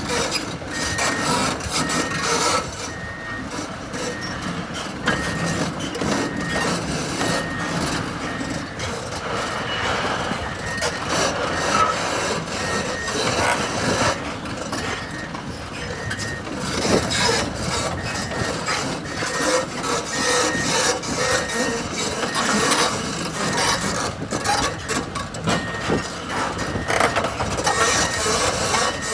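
2001 Volvo EC240LC excavator running on its Cummins C8.3 six-cylinder diesel, with a travel alarm beeping steadily at a high pitch and frequent clanks and scraping from the machine.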